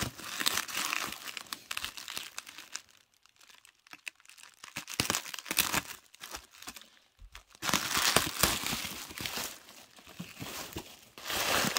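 Plastic packaging crinkling and rustling in irregular bursts as an item is pulled out and unwrapped, with a quieter stretch about three to five seconds in.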